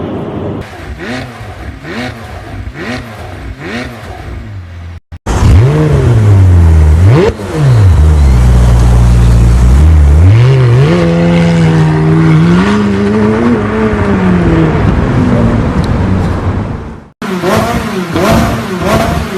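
McLaren 600LT's twin-turbo V8 exhaust in three spliced clips. First comes a series of short revs rising and falling. After a cut, a much louder stretch: one sharp rev, a low steady note, then the pitch rises and wavers before falling away. Near the end, after another cut, more quick repeated revs.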